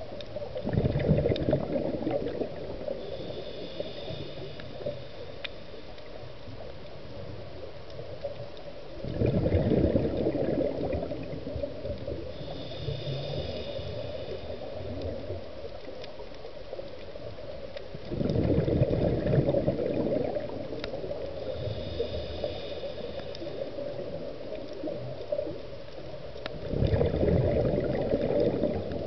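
Scuba diver breathing through a regulator underwater: a gurgling rush of exhaled bubbles about every nine seconds, four times, with the faint whistling hiss of each inhalation in between.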